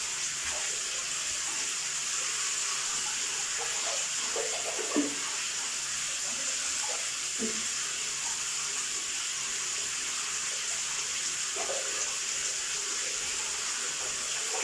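Water running steadily in a bathroom, an even hiss, with a brief soft thump about five seconds in.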